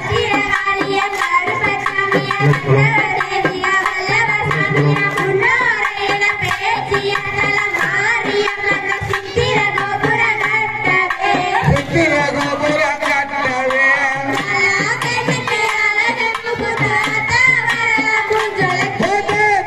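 Live kummi folk song: children's voices singing through a microphone and PA over a steady hand-drum beat.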